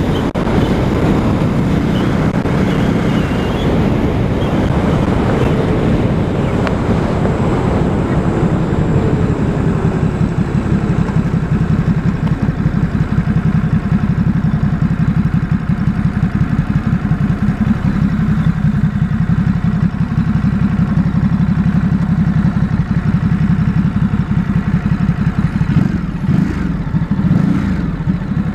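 A 2018 Ducati SuperSport S's stock 937 cc L-twin engine running while the bike is ridden along at steady revs, with a brief change in the engine note near the end.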